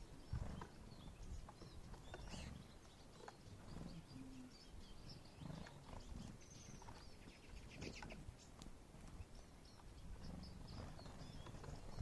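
Faint, short high chirps and twitters of small songbirds feeding on seed on the snow, over a low rumble, with a few soft ticks.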